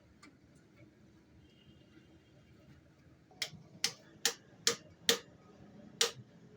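A low steady hum, then a little over three seconds in, a run of sharp taps or knocks at about two to three a second, with one short gap near the end.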